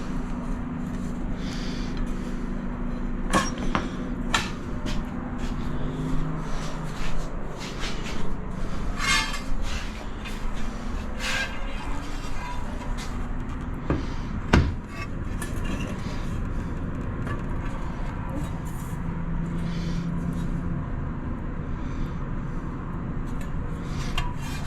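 Scattered knocks and clicks of tiles and tools being handled, with one sharper knock a little past halfway, over a steady background hum.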